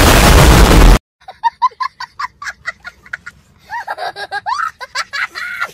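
A loud explosion blast that cuts off abruptly about a second in, then a young boy laughing hard in quick bursts that turn into longer, high-pitched peals.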